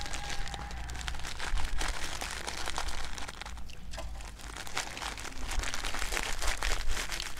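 Crinkling and crackling in rapid, irregular clicks as salt is added to sliced ginger, from plastic being handled and salt being poured.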